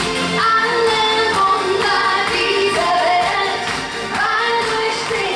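A woman singing a song into a microphone over amplified backing music.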